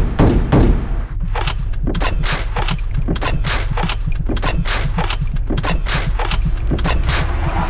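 Bulgarian MG1M belt-fed machine gun, a PKM copy in 7.62 NATO, firing: a run of sharp shots, quick in the first second and then at an even pace of about two or three a second, with a thin ringing hanging over them.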